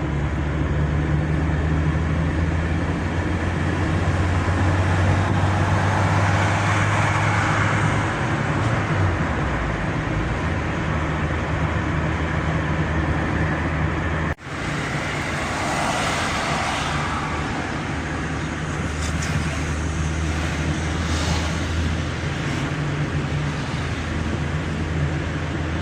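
A car being driven: steady engine hum and road noise. The engine note drops about a third of the way through, and the sound cuts out abruptly for an instant just past halfway.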